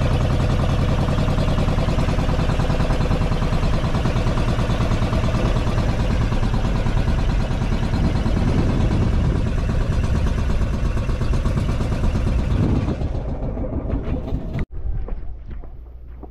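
Outrigger boat's inboard engine running steadily at cruising speed, a loud rapid chugging. It fades about two seconds before the end, and after a sudden cut comes a quieter stretch of footsteps.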